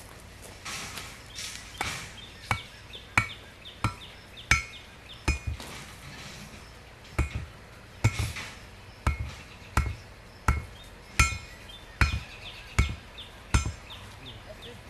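A hammer driving stakes into the ground: a steady run of sharp strikes, about one every two-thirds of a second, each with a short ring, with a brief pause around the middle.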